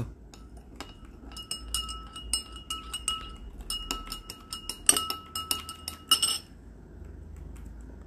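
Metal teaspoon stirred in a glass tumbler of water, striking the glass in quick repeated clinks, each with a bright ringing note. The clinking stops about six seconds in.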